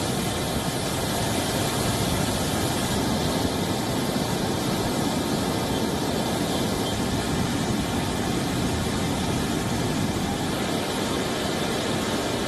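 Rushing floodwater of a swollen, muddy mountain river, a steady, even noise without a break.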